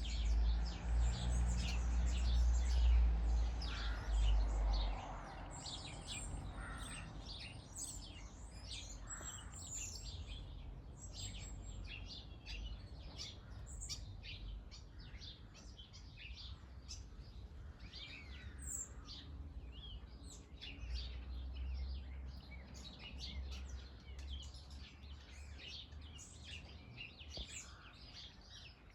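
Small garden birds chirping and calling, many short high notes overlapping throughout. A deep low rumble is loudest in the first five seconds and returns more faintly about three-quarters of the way through.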